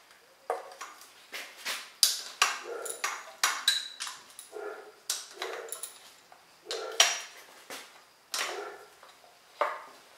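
Dogs barking over and over, a dozen or more sharp barks in uneven bursts.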